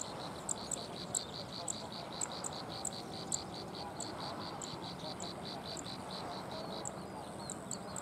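Zitting cisticola and plain prinia calling in a grassy field: a fast, even run of high notes about four a second, with sharper, higher ticks about twice a second over it.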